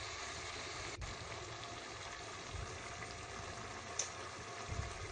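Faint steady hiss of chicken curry simmering in an open pressure cooker on the stove, with a few soft low knocks.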